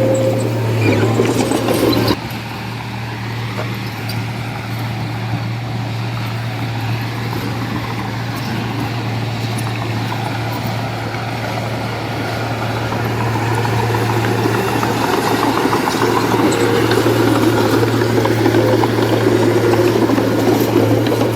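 Diesel engine of heavy earthmoving machinery running steadily with a constant low hum. It drops abruptly about two seconds in, then slowly grows louder again toward the end.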